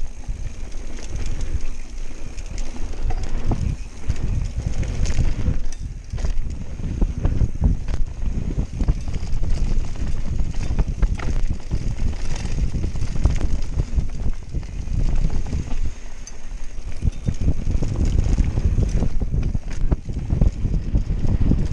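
Mountain bike (Canyon Spectral AL 7.0 EX) descending a dirt trail at speed: wind buffets the camera microphone over a deep rumble of the tyres on dirt, with frequent clatters and knocks from the bike over bumps.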